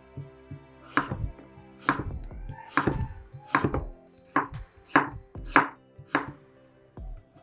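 Chef's knife slicing through firm raw pumpkin and knocking on a wooden cutting board, a sharp chop roughly every half second to second.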